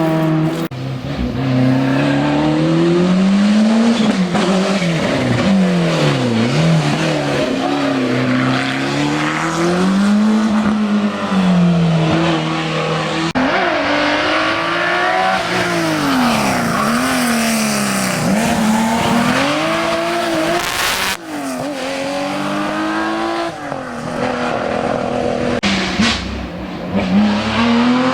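Historic rally car engine at full effort on a special stage, its note repeatedly climbing and dropping as the driver accelerates, shifts gear and lifts for corners.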